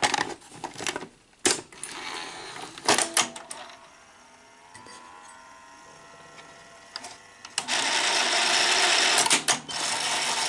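Sony SL-5000 Betamax deck's cassette mechanism being worked: a few sharp clicks and clunks in the first three seconds, then a faint mechanical whir, then a loud steady hiss that starts a little after seven seconds in.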